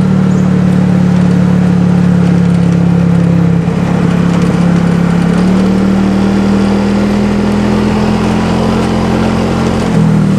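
Diesel bus engine with a growling 'ngorok' exhaust, running loudly and steadily, its note shifting slightly about a third of the way in and again just past halfway.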